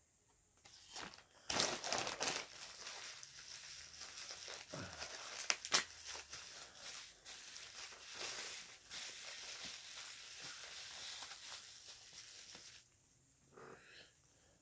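Clear plastic packaging crinkling and rustling as it is handled and unwrapped, with a few sharp crackles, stopping about thirteen seconds in.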